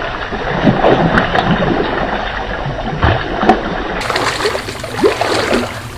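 A hooked fish thrashing at the water's surface while being played on a long fishing rod, making a run of irregular splashes.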